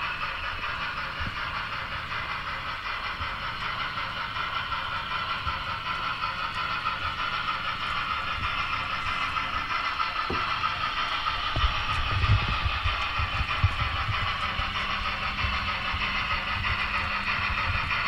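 Paragon 3 DCC sound decoder in a Broadway Limited Imports N scale USRA steam locomotive model, playing steam chuff and hiss through its tiny onboard speaker as the model runs, slowly growing louder as it approaches. From about twelve seconds in, the low rumble and clatter of its wheels on the track join in, with a low steady hum over the last few seconds.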